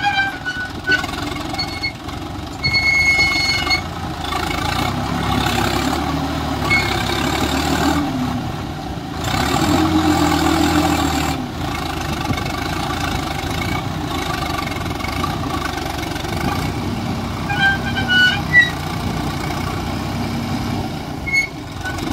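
Swaraj 744 XT tractor's three-cylinder diesel engine running under load as the tractor sits stuck in deep sand, its note rising and falling twice as the driver works the throttle.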